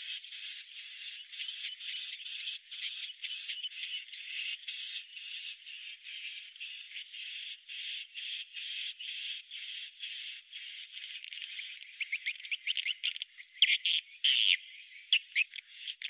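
Swiftlet roosting ('inap') call, the twittering used to lure swiftlets into a swiftlet house: high, repeated arching chirps at about two a second. About three-quarters of the way through they give way to a quicker run of short clicks and chirps.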